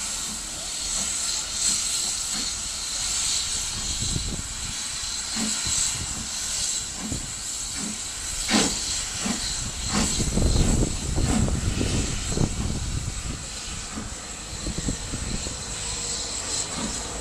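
Steam locomotive working a passenger train away, with a steady hiss of steam under slow, regular exhaust beats. The chuffing and the rumble of the train are loudest about two-thirds of the way through.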